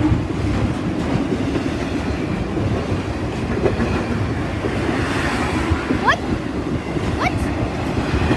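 Intermodal freight train rolling steadily past, its flatcars loaded with truck trailers rumbling and clattering over the rails. Two short rising squeaks come about six and seven seconds in.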